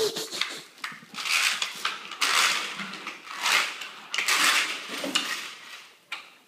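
Large clear plastic sheet being handled, rustling and crinkling in about four loud bursts.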